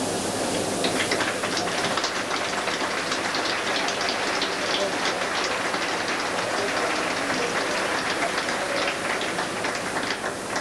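Large arena crowd applauding, a dense patter of clapping that builds about a second in and tails off near the end, over a steady hiss.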